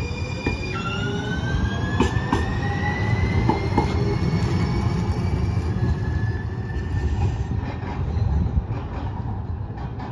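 Siemens S70 streetcar accelerating past on steel rails, its traction motor whine rising slowly in pitch over a low rumble of wheels. There are a couple of sharp clicks about two seconds in.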